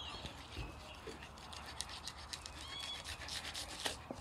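Filleting knife sliding between skin and flesh of a flathead fillet on a bamboo cutting board, skinning it: faint, irregular scratching with small clicks of the blade on the board.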